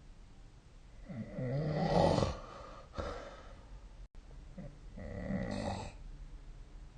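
A sleeping person snoring: two long, rasping snores a few seconds apart, the first louder than the second.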